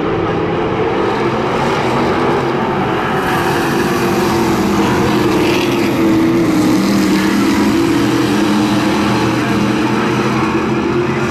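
A pack of Amcar dirt-track race cars running laps, their engines loud and steady together, swelling slightly as the cars pass close about halfway through.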